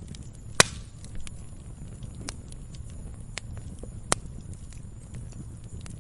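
Wood campfire crackling: scattered small pops over a low steady rumble. Two much louder sharp snaps come about half a second in and about four seconds in.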